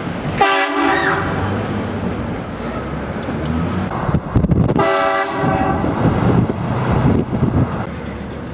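Vehicle-mounted train horn blasted twice, about four seconds apart, each blast a loud chord of several tones, over steady road noise.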